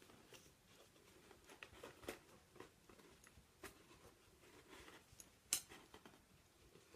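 Faint handling noises: scattered light clicks and rustles, with one sharper click about five and a half seconds in.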